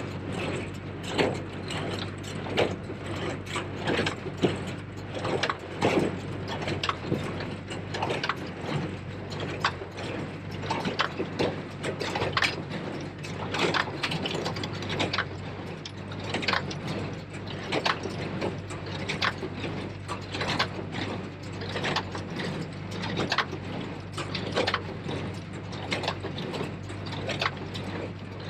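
New Holland 273 small square baler working behind a Case IH JX75 tractor: a steady low engine hum under a continual clatter of mechanical knocks and clacks from the baler.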